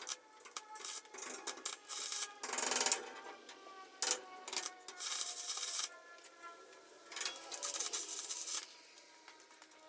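Stick-welding arc on aluminum angle, crackling and hissing in several separate bursts, the longest about a second.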